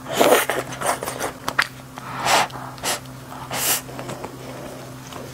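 Close-miked mouth sounds of eating: a bite of food taken off chopsticks and chewed, with about half a dozen short, hissy mouth noises spaced through it. A faint steady low hum sits underneath.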